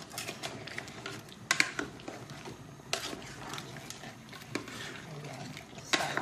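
Wooden spoon stirring a pot of crabs, shrimp and corn in thick sauce, with five or six sharp knocks against the pot, the loudest about a second and a half in and near the end.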